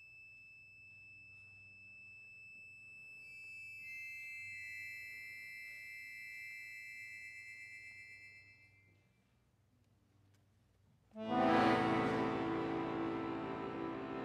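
Chromatic button accordion playing soft, sustained high notes that enter one after another and fade away after about eight seconds. After a short pause, a loud, full chord enters abruptly about eleven seconds in and is held.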